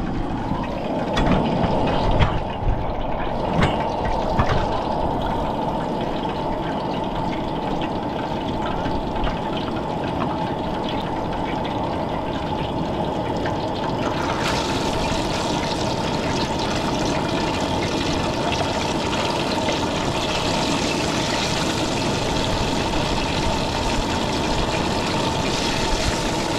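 Flour-coated fish pieces frying in hot oil in a pan, a steady crackling sizzle that gets brighter and fuller about halfway through as more pieces go in. A few light knocks come in the first seconds.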